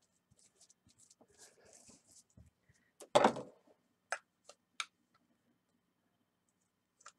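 Hands handling craft supplies on a tabletop: faint rustling, a single knock a little after three seconds in, then three sharp clicks.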